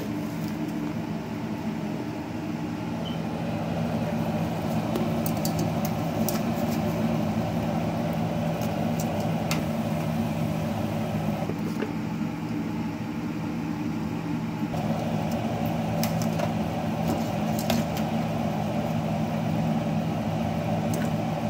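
Steady motor hum of a kitchen appliance running, with a few light metallic clinks from tongs and a ladle against a steel tray and stockpot as vegetables are added and stirred.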